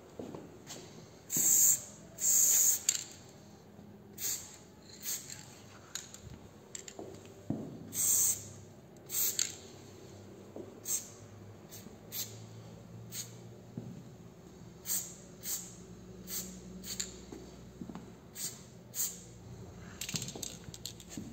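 Aerosol spray paint can hissing in short bursts, about twenty in all: two longer sprays near the start, the rest under half a second each.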